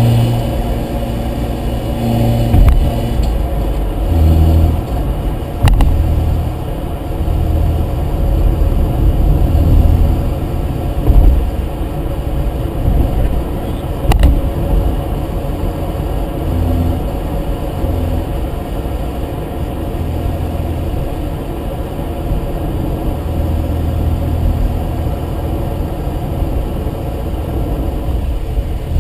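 Mazda RX-7's rotary engine and drivetrain running under changing load, a steady low rumble that rises and falls, with a couple of sharp knocks about six and fourteen seconds in.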